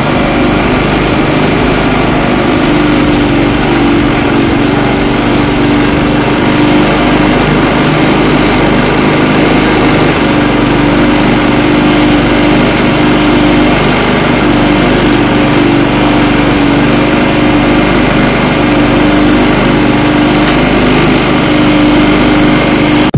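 Motorised grass chopper for livestock feed, its small engine running at a steady speed without change.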